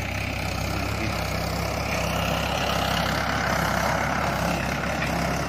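Farm tractor's diesel engine running steadily as it tows a loaded trailer past, growing a little louder toward the middle and easing off near the end.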